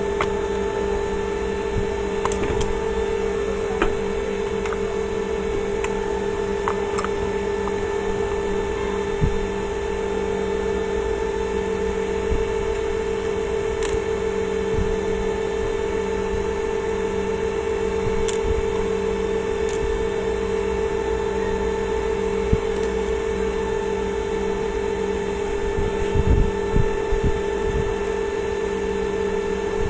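Steady electrical hum at an even pitch, with a few light clicks and some low knocks near the end.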